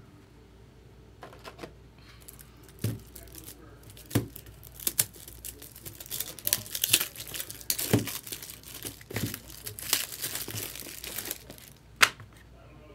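Thin clear plastic card sleeve crinkling and rustling as a trading card is handled and shifted in the fingers. The sound is scattered and irregular, thickest in the middle, with a few sharp clicks; the loudest click comes near the end.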